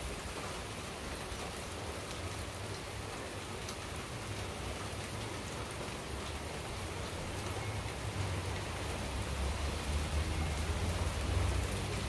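Steady rain falling, with faint scattered drop ticks and a low rumble that grows stronger over the last few seconds.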